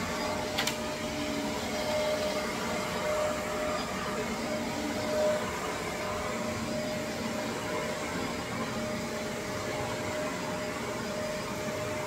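Shark upright vacuum cleaner running steadily: its motor gives an even rush of air with a steady whine. A sharp click sounds about half a second in.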